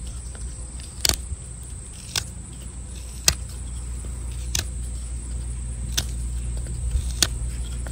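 A pocketknife blade cutting small chips from a cedar bow-drill spindle, each cut a sharp click, about six of them roughly a second apart. A steady high insect drone runs underneath.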